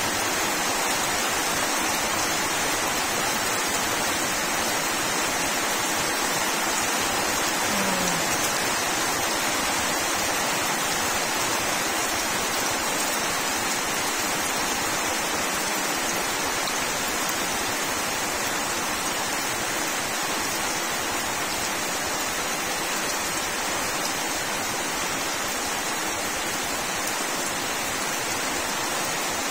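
Rain falling steadily on banana leaves and muddy, puddled ground, an even hiss that does not let up.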